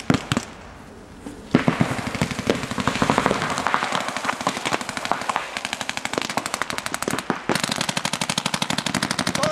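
Paintball markers firing: a few single shots, then from about a second and a half in, rapid strings of sharp pops, many a second, from several markers at once. Near the end, a very even, fast string of shots.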